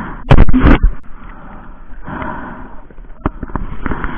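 Handling noise on an action camera's waterproof housing: a cluster of sharp knocks about half a second in, then muffled rubbing and wind-and-water noise, with one more click later on.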